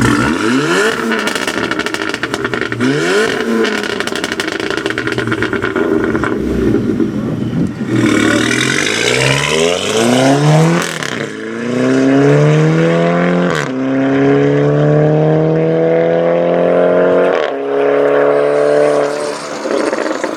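Volkswagen Golf's turbocharged four-cylinder engine revving and then accelerating hard, its pitch climbing through the gears and dropping abruptly at two quick upshifts in the second half.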